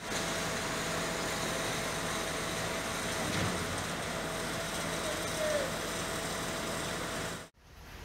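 Truck-mounted concrete pump on a MAN ready-mix truck running steadily during a concrete pour: a constant mechanical drone with hiss. It cuts off suddenly near the end.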